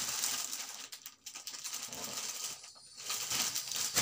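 Gift wrapping, paper and a plastic bag, rustling and crinkling as it is handled and pulled open. It comes in three stretches with short pauses between.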